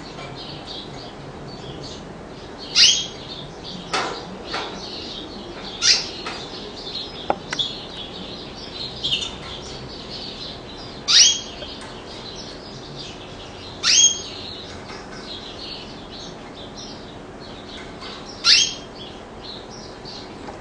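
Canary calling: six loud, sharp notes that each sweep down in pitch, spaced a few seconds apart, with softer high twittering between them in the first half.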